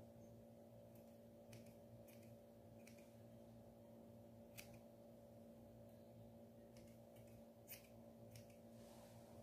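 Grooming scissors snipping the fur on a small dog's face: a handful of faint, scattered snips over a low steady hum.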